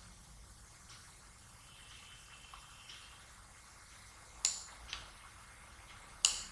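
A few sharp computer mouse clicks, two about four and a half to five seconds in and the loudest near the end, over a faint steady hiss.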